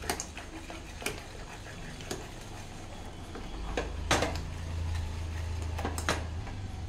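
Steel ladle mashing soft cooked toor dal in a pressure cooker, knocking against the pot's metal side about once a second. A low hum swells in the middle.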